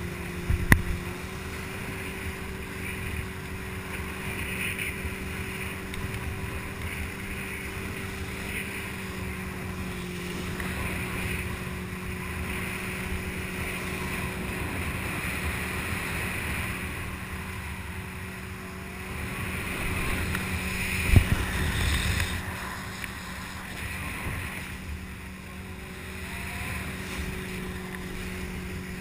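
Steady drone of a towing motorboat's engine under wind buffeting the microphone and rushing water. Two sharp thumps stand out: one just after the start and a louder spell with a thump about twenty seconds in.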